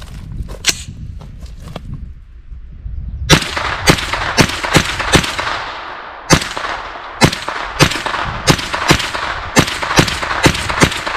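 A 9mm AR-15-pattern carbine (AR-9) with a 16" stainless barrel firing semi-automatic: about fifteen shots that begin about three seconds in, a quick string of five, a short pause, then about ten more at a steady pace, each with a ringing echo.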